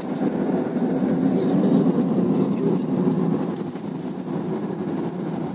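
Steady road and engine noise of a moving car heard from inside the cabin, dipping slightly about four seconds in.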